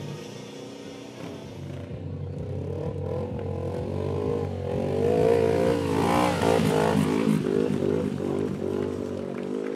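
Stunt motorcycle's engine revving, its pitch rising and wavering as it grows louder about three seconds in, loudest around the middle, then easing back. Electronic music with a steady beat plays underneath.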